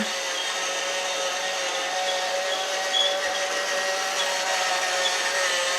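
Battery-powered remote-control toy train running: a steady electric motor whir with faint high ticks every second or so.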